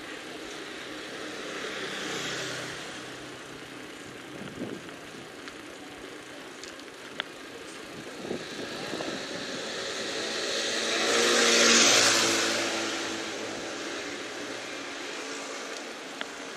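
Street traffic: one vehicle passes a little after two seconds in, and another passes close by, its engine and tyres loudest about twelve seconds in before fading.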